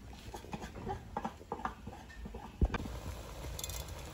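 Wooden pestle pounding in a wooden mortar: a series of irregular dull knocks, then one louder thump about two and a half seconds in.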